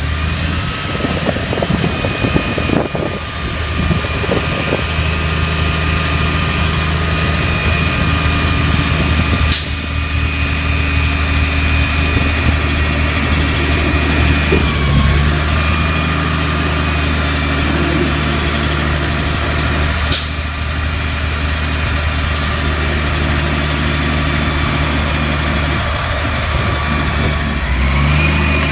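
Automated side-loader garbage truck idling, its diesel engine giving a steady low hum under a high steady whine; near the end the whine climbs in pitch as the lifting arm starts to move. A few sharp clicks are scattered through it.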